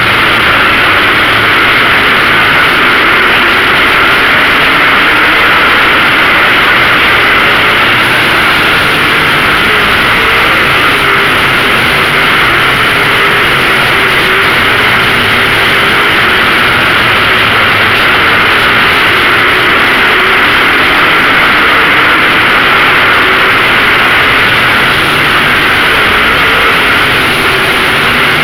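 A field of late model race cars running laps together: a loud, steady blend of racing engines that holds without a break.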